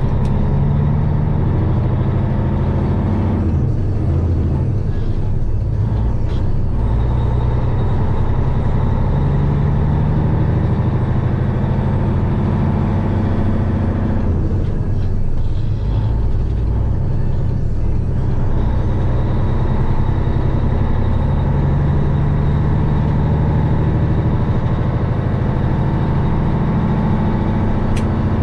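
Semi truck's diesel engine running steadily at highway speed while pulling a load of corn, heard inside the cab as a constant low drone with road noise.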